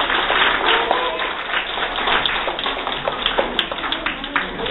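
Audience clapping: many quick overlapping hand claps, with a few voices faintly underneath.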